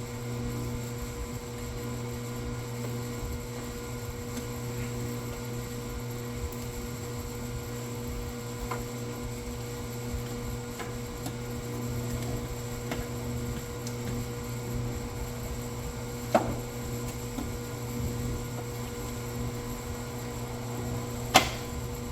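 Steady electrical hum with a few faint sharp clicks and two louder sharp knocks, one about two-thirds of the way in and the loudest near the end.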